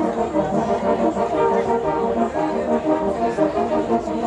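Brass ensemble of horn players playing a piece together, with sustained chords that shift from note to note.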